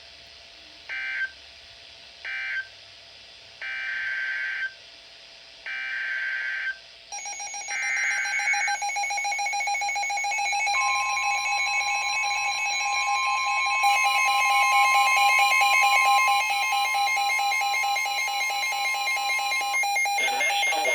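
Emergency Alert System SAME data bursts: two short screeching bursts about a second apart (the end of the previous warning), then three longer one-second bursts (the header of the next warning). A long steady alert tone follows, joined a few seconds later by a second, higher tone, and both stop shortly before the next warning is read.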